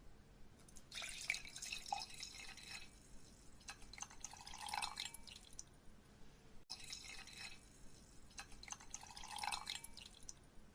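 Water dripping and trickling into a glass, with small splashes and clinks. The same few seconds play twice, split by a brief cut about halfway.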